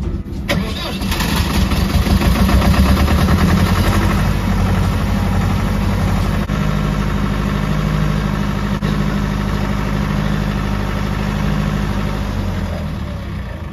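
Diesel engine starting about a second in and running steadily, then dying away near the end: the machine's controls are pulling up a fault and shutting the engine down.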